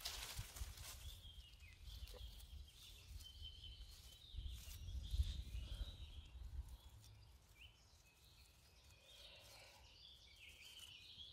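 Faint rustling of dry fallen leaves and hand-handling bumps as a cep is worked free from the leaf litter, with faint bird chirps in the background; it falls to near silence in the last few seconds.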